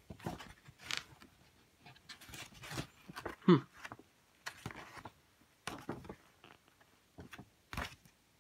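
Irregular rustles, taps and clicks of things being handled, with one short falling pitched sound about three and a half seconds in.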